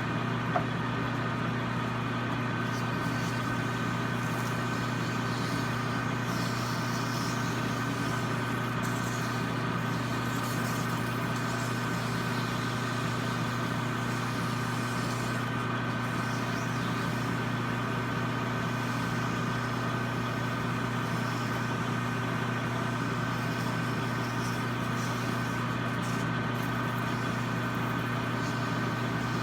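Metal lathe running steadily at low speed, a constant hum with several held tones, with one short click about half a second in.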